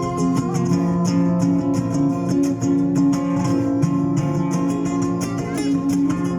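Instrumental passage of a song: guitar strumming chords in a steady rhythm under held notes, with no singing.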